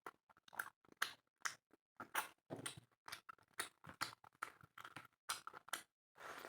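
Close-up chewing and mouth sounds of a person eating spicy chicken with rice: irregular short clicks and wet bursts several times a second.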